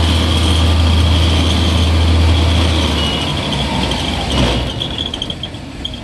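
Household rice milling machine running with a strong steady low hum and a high whine; the hum stops about halfway through and the sound then fades away.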